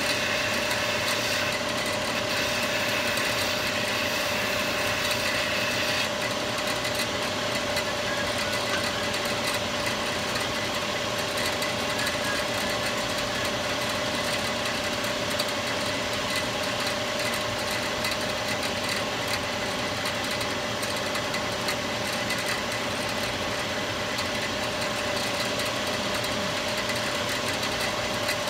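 A workshop machine's electric motor running steadily with a constant hum, with a higher whine that comes and goes in the first six seconds.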